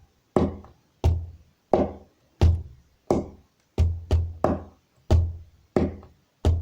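A wooden table played as a drum with the hands in a steady rhythm, about eleven strikes. Deep thumps from closed-fist blows to the middle of the table mix with higher, thinner slaps from the open hand on the edges.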